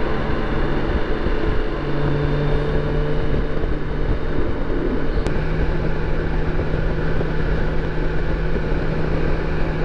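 BMW K1600 motorcycle's inline-six engine running on the open road, a steady hum that steps up slightly in pitch twice, under a constant rush of wind noise.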